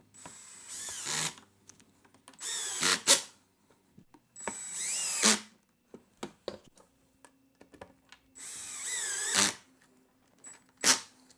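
Power drill driving screws in four short runs of about a second each, the motor's pitch sweeping up and down within each run. Sharp clicks come at the end of the runs and once more near the end.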